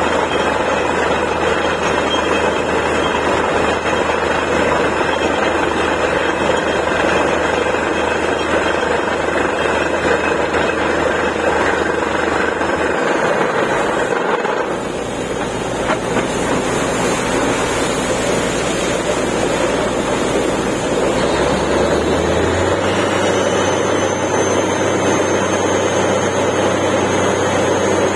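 Borewell drilling machine running, with a loud, steady rush of air and water from the bore. A deep engine hum underneath stops a little before halfway and comes back later at a different pitch.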